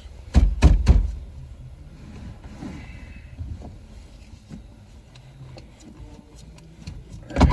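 A car's steering wheel being worked off its column shaft: three heavy thumps about half a second in, then light clicks and rattles, and another thump near the end.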